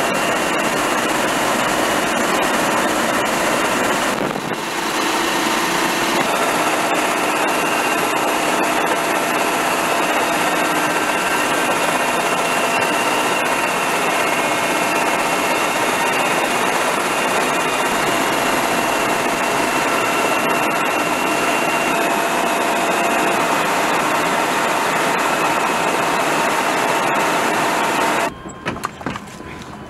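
Helicopter turbine engines and rotor in flight: a steady loud rush with a constant high whine. It dips briefly about four seconds in and drops away near the end.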